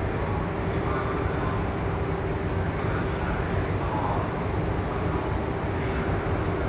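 Jumbo Ferry car ferry's engines and propellers running as it comes in to berth: a steady low rumble with a steady hum over it that fades out about five seconds in.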